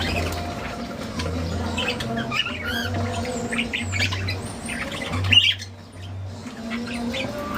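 Lovebirds squawking and chirping in many short, sharp calls, the loudest a little past five seconds in, over a low hum that starts and stops.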